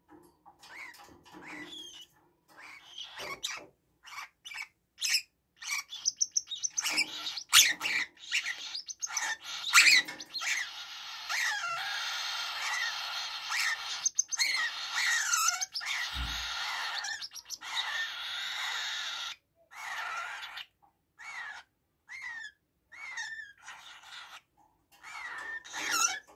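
Young pet parrots, a cockatiel and a red-rumped parrot, calling in a cage: a run of short chirps and squawks, with a long dense stretch of calling in the middle.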